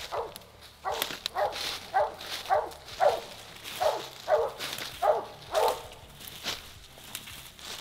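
Walker coonhound barking over and over, about two barks a second, the barks thinning out near the end; the steady barking of a hound at a tree.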